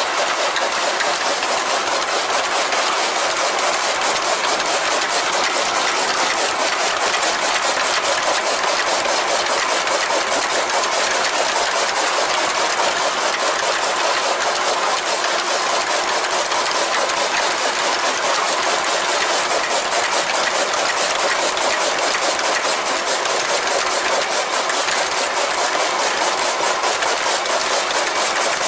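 Flywheel chaff cutter (toka machine) running and chopping green fodder stalks: a steady, fast, even clatter of the blades cutting.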